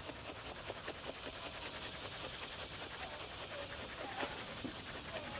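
Salt-and-pepper dry rub (with granulated garlic) shaken from a shaker held up high onto raw pork spare ribs: a steady, rapid pattering hiss of granules falling onto the meat.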